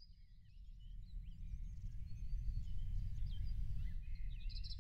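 Small birds chirping and twittering over a low, steady rumble of outdoor ambience, with a quick trill near the end.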